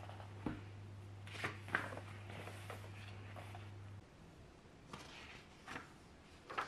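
Quiet room with a steady low hum that stops about four seconds in, and a few light clicks and rustles scattered through, like small objects being handled.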